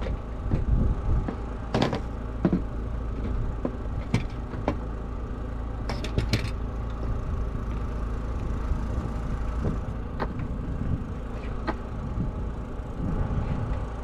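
A steady low mechanical hum, with several sharp knocks and a short clatter about six seconds in.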